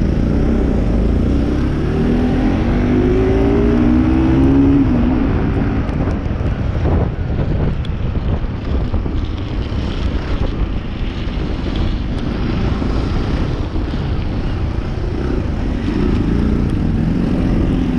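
Bajaj Pulsar NS motorcycle engine running on the move, its note rising as it accelerates a couple of seconds in and then levelling off, under a steady wind rumble on the bike-mounted camera.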